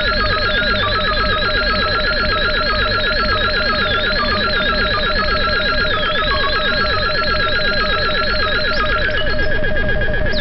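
Buchla and Eurorack modular synthesizers playing an electronic soundscape: a fast, even pulse of short falling blips, about ten a second, under a wavering high tone and a steady whistle-like tone, over a low drone. Near the end the high wavering tone drops out.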